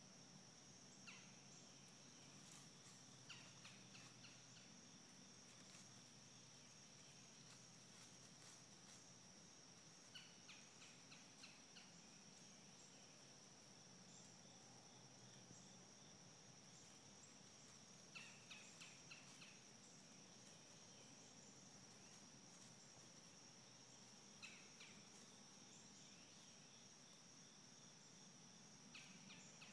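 Faint outdoor ambience: a steady, high-pitched insect drone, with short clusters of faint clicks or rustles every several seconds.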